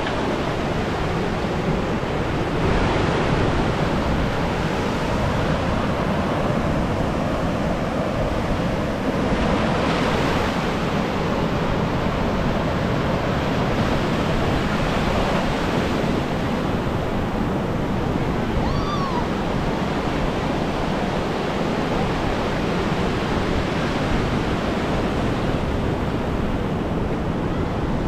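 Sea surf breaking on a sand beach: a continuous wash of waves that swells louder about three seconds in and again about ten seconds in.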